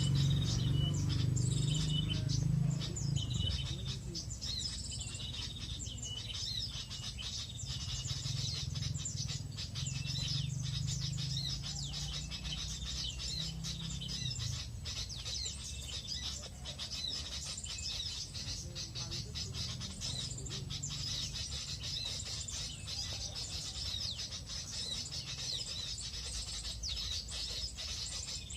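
Wild birds chirping and calling in quick, overlapping high notes, one after another throughout, with a low rumble underneath in the first few seconds and again about halfway through.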